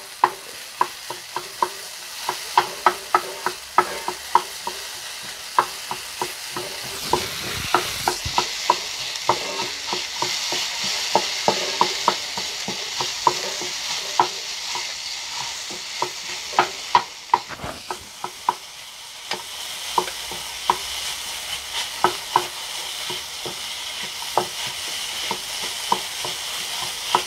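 A spatula tapping and scraping against a pan in quick, irregular clicks as boiled cassava is mashed and stirred into sautéed onions, over a steady frying sizzle.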